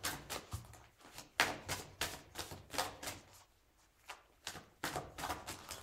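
A deck of cards being shuffled and handled in the hands: a run of irregular snaps and taps of card against card, pausing for about a second just past the middle.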